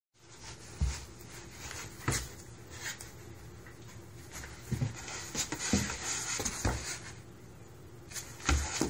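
A cat scrambling about inside a large cardboard box: claws scuffing and scratching on the cardboard, with scattered dull thumps as its body hits the box's floor and sides.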